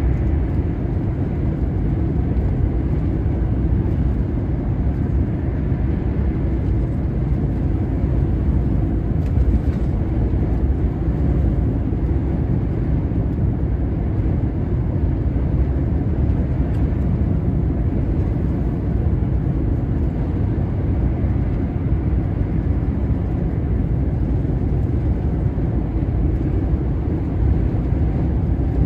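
Steady low rumble inside a truck cab at motorway cruising speed: the diesel engine running under load together with tyre and road noise, with no change in pitch.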